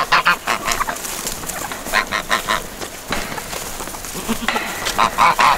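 Domestic geese honking in short, repeated runs of calls: a few at the start, another run about two seconds in, and more near the end.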